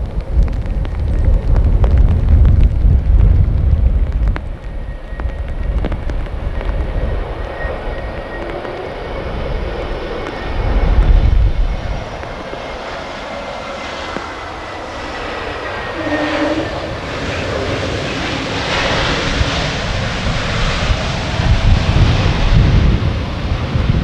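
Airbus A320neo jet engines whining as the airliner lands and rolls out on a rain-soaked runway, the jet noise swelling louder in the second half. Gusts of wind rumble on the microphone, heaviest at the start, about halfway through and near the end.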